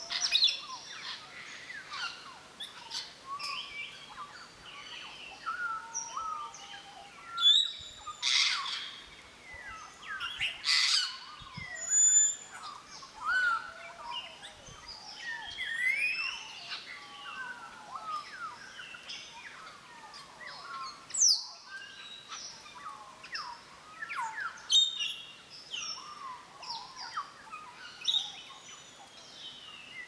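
A flock of African grey parrots calling: many varied whistles gliding up and down, broken by several loud, harsh shrieks.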